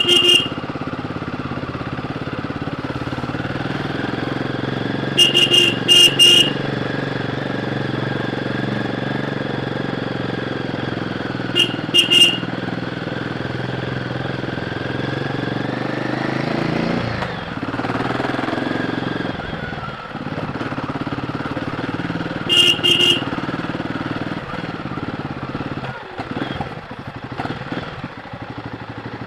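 Royal Enfield Guerrilla 450's single-cylinder engine running through its stock exhaust under way on the road, its pitch rising and falling around the middle as the throttle and gears change. Short horn beeps come in quick groups four times.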